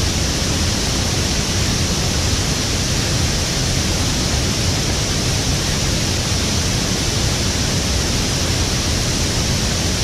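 Steady rushing of water from a small waterfall and its stream, an even noise with no breaks.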